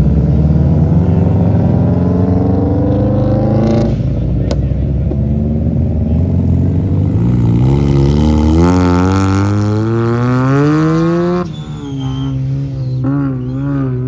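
Performance car engine accelerating hard: its note climbs steadily, breaks about four seconds in as it shifts up, climbs again and then drops sharply near the end.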